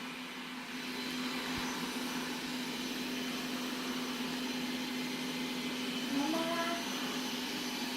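Qihoo 360 S6 robot vacuum cleaner running, a steady motor hum with a constant tone.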